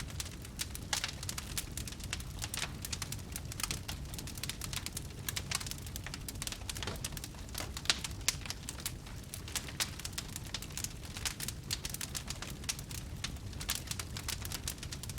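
Fire crackling: dense, irregular pops and snaps over a low, steady rumble, with one louder pop about eight seconds in.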